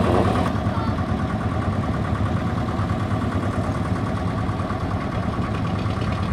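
Old farm tractor engine running steadily, a low, even engine note.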